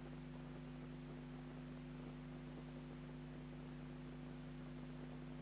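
Low, steady electrical hum under a faint hiss.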